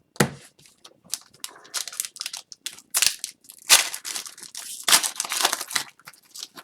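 Plastic card packaging crinkling and rustling in sharp, irregular crackles as hockey cards are handled, the loudest crackles about three and a half and five seconds in.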